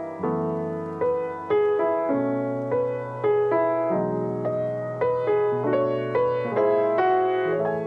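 Background piano music: a melody of single notes struck about once or twice a second and left to fade, over sustained lower chords.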